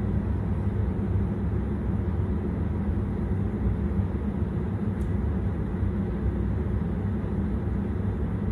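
Chicken wings frying in shallow oil in a karahi, a steady sizzle under a low, even rumble, with a single light click about five seconds in.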